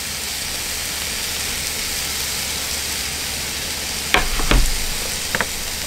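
Pork slices sizzling on the griddle side of a hot pot grill, a steady hiss, with a few knocks about four seconds in and again near the end.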